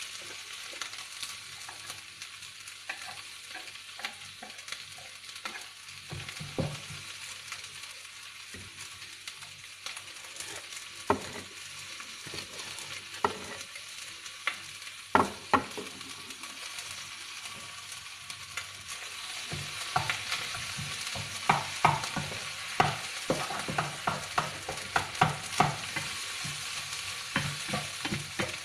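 Fried rice and mustard greens frying in a pan with a steady sizzle, while a wooden spatula stirs and scrapes, knocking against the pan now and then. The knocks come thick and fast in the last third.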